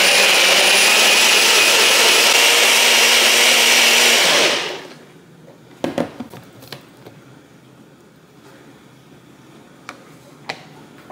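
Bullet-style personal blender running at full speed as it blends a fruit smoothie, then winding down and stopping about four and a half seconds in. A few short clunks follow as the blender cup and a drinking glass are handled on the countertop.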